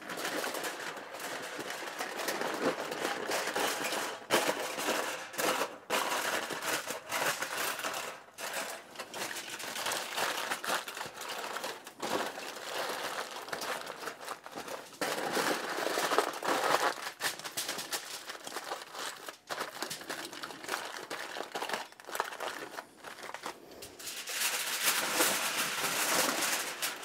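Aluminium foil crinkling and crackling as hands fold and crimp it tightly around a rack of pork spare ribs, in uneven stretches with brief pauses; the crinkling is brightest near the end.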